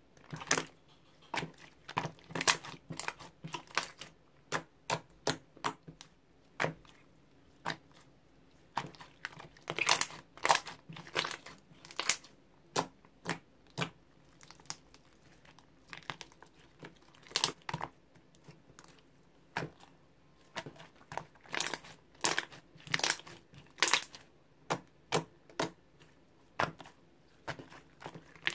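Clear slime being stretched, folded and squeezed by hand, giving irregular sharp crackles and pops, often several in quick succession.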